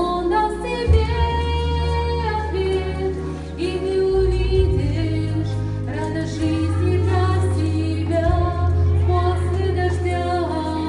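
Music: a woman singing a slow song over instrumental accompaniment with sustained bass notes that change about every two seconds.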